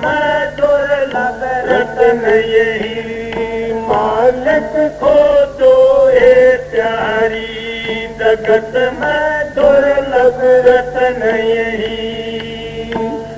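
Male voice singing a Hindi devotional shabad in a slow, chant-like melody, with long held notes that waver and glide between pitches.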